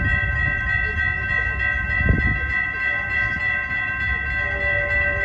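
Railroad crossing warning bell ringing steadily, warning of an approaching train, over a low rumble of wind and traffic. A second, lower set of steady tones joins about four seconds in.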